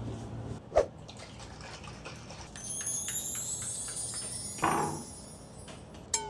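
Cute cartoon sound effects over water sounds: a sharp pop about a second in, a run of quick ticks with high rising sparkly tones, a short burst near five seconds, and falling tones at the very end.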